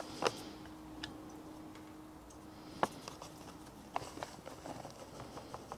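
Handling a paper bag of plain flour and tipping it into a mixing bowl: a few soft crinkles and clicks, then scattered small rustles and ticks from about four seconds in as the flour pours.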